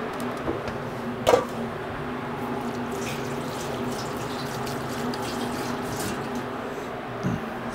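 Water running from a tap into a stainless steel kitchen sink over a steady background hum. A single sharp clank comes about a second in, and a softer knock near the end.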